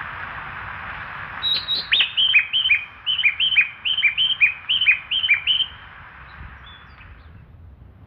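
Recorded bird chirps played from a station platform's guide-chime loudspeaker (盲導鈴), which marks a spot on the platform for visually impaired passengers. A steady hiss comes first; about a second and a half in, a quick run of short falling chirps starts, alternating high and low, about a dozen in four seconds, then fades out.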